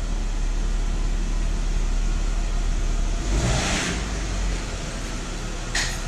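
Jeep Wrangler's engine running as it reverses slowly into a garage: a steady low rumble. There is a short hissing swell about halfway through and a sharp click near the end.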